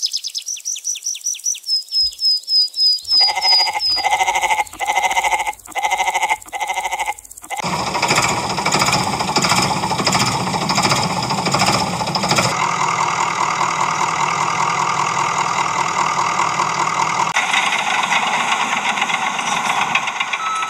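A run of vehicle sound effects. It opens with a few seconds of rapid high electronic chirps, then a pitched tone that pulses on and off about twice a second. From about eight seconds in, a steady rattling engine-like noise takes over, changing tone twice.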